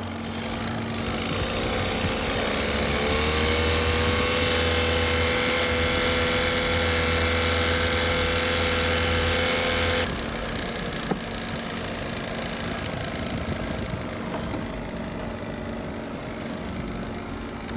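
A boat engine running; its pitch climbs over the first few seconds and then holds steady until it cuts off suddenly about ten seconds in, after which a lower, steady engine hum carries on.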